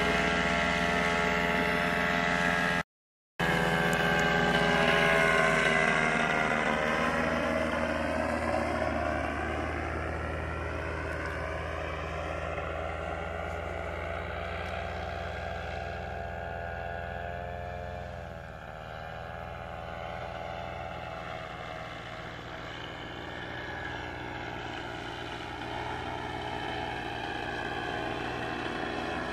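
Flexwing microlight's engine and propeller droning as it flies past overhead. The pitch slides down and the sound fades as it moves away, with a brief dropout about three seconds in, then it grows slowly louder again near the end.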